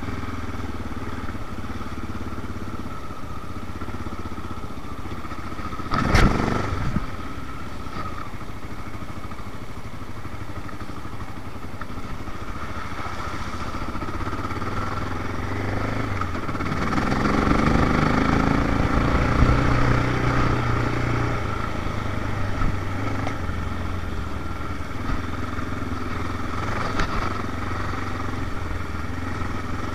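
Honda XR650L's single-cylinder four-stroke engine running under way on a dirt trail, getting louder as it pulls harder around the middle and then easing back. A single sharp knock about six seconds in.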